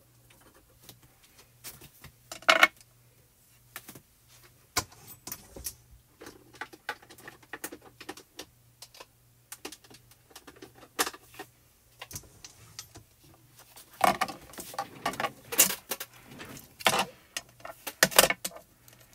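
Clicks and clatter of wooden-handled blending brushes and a Distress Ink pad being picked up and set down on a craft mat. There is a sharper knock about two and a half seconds in, and the handling gets busier near the end.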